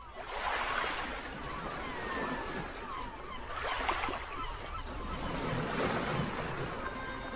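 Sea waves washing in, swelling and easing about three times, with a little wind.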